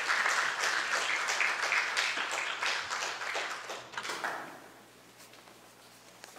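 Congregation applauding, a dense patter of many hand claps that dies away about four seconds in.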